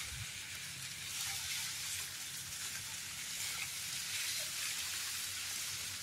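Steady rustling hiss of tall fodder grass leaves brushing against people pushing through a dense grass plot.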